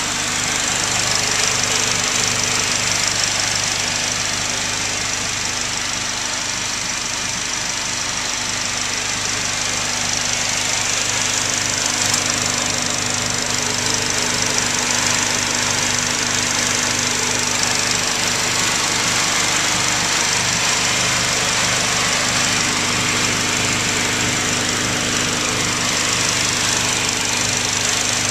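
Honda Del Sol's swapped-in K20Z1 2.0-litre four-cylinder engine idling steadily at one even speed, heard up close under the open hood.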